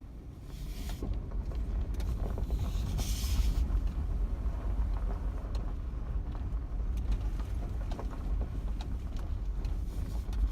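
A vehicle driving on a dry dirt and gravel road: a steady low engine and road rumble, with tyres crunching over gravel and small rattles and knocks. Two short hissing sounds come about a second in and again around three seconds in.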